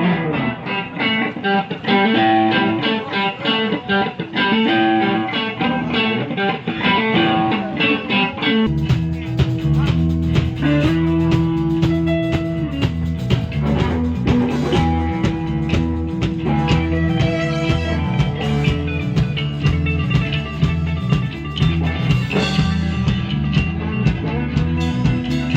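Rock band playing an instrumental: an electric guitar picks a fast riff alone, then bass and drums come in about a third of the way through and the full band plays on.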